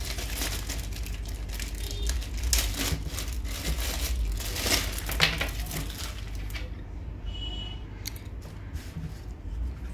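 Clear plastic poly bag crinkling and rustling as hands handle it and pull cables out of it, dense for the first six seconds or so and sparser after that, over a steady low hum.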